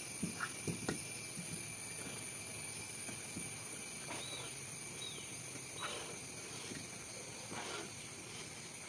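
Steady high-pitched trilling of insects in the trees, with a few soft knocks in the first second and three short rising-and-falling chirps midway.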